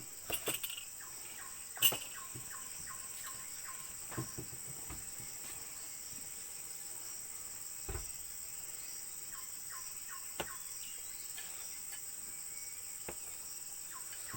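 Outdoor insect chorus as a steady high buzz, with a bird calling in runs of short, quickly repeated notes. A few sharp clicks, the loudest about two seconds in.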